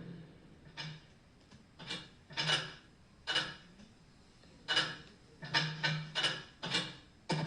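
A series of about ten short, scratchy noises at uneven intervals, bunching closer together in the second half.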